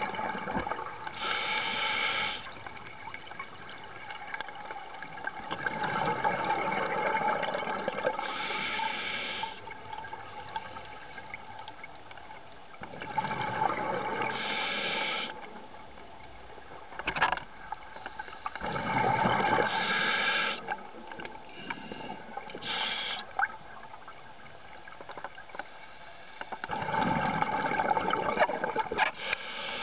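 Open-circuit scuba breathing underwater: a short hiss from the regulator on each inhale, then a longer bubbling rush of exhaled air. About five breaths.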